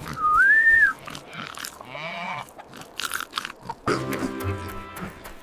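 A short squeaky tone that rises and then falls, followed by a run of crunching sound effects, over light music.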